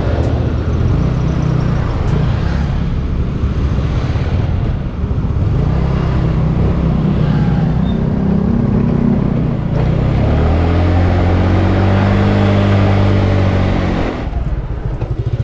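Yamaha Mio Sporty scooter's engine running under way, heard from the rider's seat with wind rumbling on the microphone. For a few seconds in the latter part the engine note comes through clearer as a steady pitched hum that rises and falls a little.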